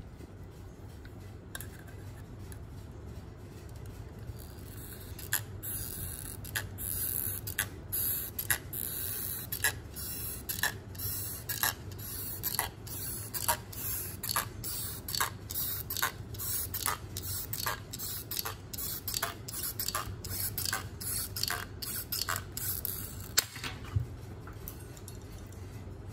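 Aviation tin snips cutting thin sheet metal along a marked line: a steady run of short, sharp snipping crunches at about two a second. The cutting starts about five seconds in and stops shortly before the end, over a steady low hum.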